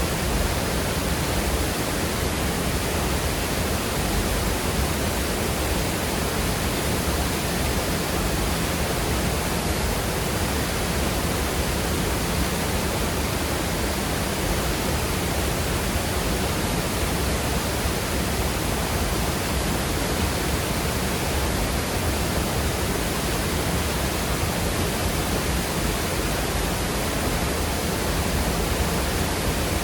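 Waterfall pouring into a fast-flowing creek: a steady, even rush of water over rocks.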